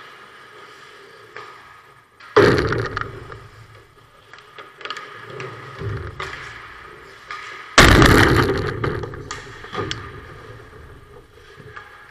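Ice hockey play at the goal: two loud bangs about five seconds apart, each trailing off over a second or so, with lighter knocks and scraping between.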